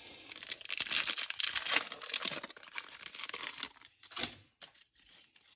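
Foil trading card pack wrapper being torn open and crinkled, a dense crackling rustle for the first three and a half seconds, then one more short crinkle a little after four seconds.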